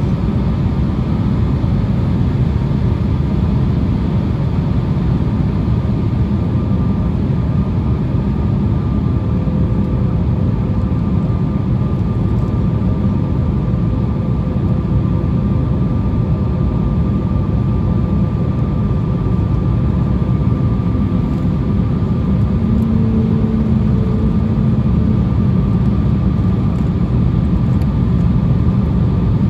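Steady in-flight cabin rumble of an Embraer E175 on approach, its wing-mounted GE CF34-8E turbofans running evenly, with a faint steady whine over the low rumble.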